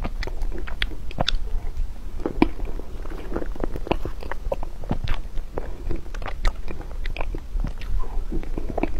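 Close-miked chewing and mouth sounds of someone eating soft chocolate-glazed mousse cake, with irregular small clicks throughout.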